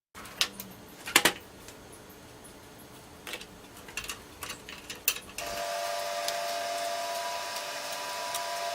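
A few sharp clicks and knocks of hard parts being handled, then about five and a half seconds in a small electric motor starts and runs with a steady whine.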